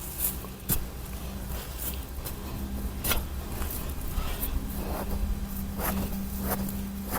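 Irregular scrapes and rustles of groundnut plants being pulled up and soil being worked by hand, over a low steady rumble and a faint steady hum.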